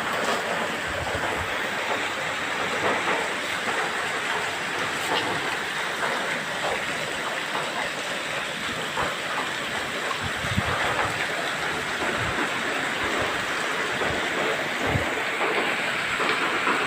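Steady heavy rain falling, an even hiss with scattered louder drops and knocks.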